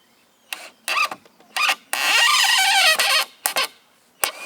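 Goat bleating: a few short calls, then one long quavering bleat about two seconds in.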